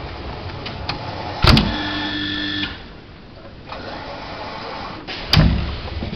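Amika 6XL commercial dishwasher: a loud clunk, then a motor hum for about a second that cuts off, and a second loud clunk near the end over a steady machine noise.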